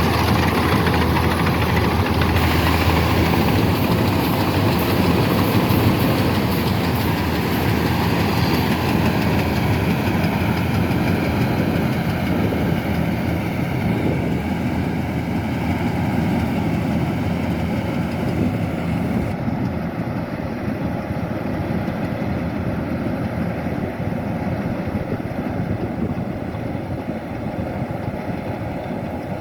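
Kubota DC-105X combine harvester running steadily as it works, its diesel engine and machinery giving a continuous mechanical din that slowly grows fainter.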